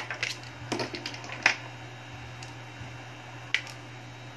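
Small sharp clicks and taps of an iPhone 5S being handled and pressed at its bottom edge: a quick cluster in the first second and a half and one more about three and a half seconds in, over a steady low hum.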